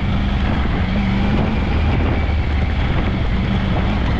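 Steady low engine drone with a constant rushing noise over it.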